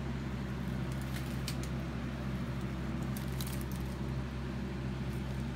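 Box fan running with a steady low hum, with a few faint clicks and rustles from handling the wigs and their plastic rollers.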